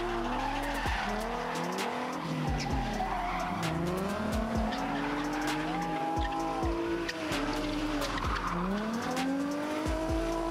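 Two drift cars sliding in tandem: their engines rev up and fall away again and again, over the hiss and squeal of spinning, smoking tires, with sharp cracks scattered throughout.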